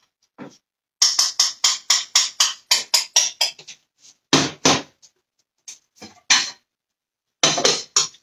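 A kitchen utensil scraping and clattering in quick repeated strokes, about five a second, for a few seconds, then a few separate louder knocks.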